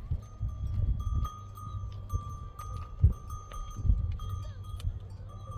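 A flock of sheep and goats with small neck bells clinking and ringing, over a low rumble of wind on the microphone, with two louder thumps about three and four seconds in.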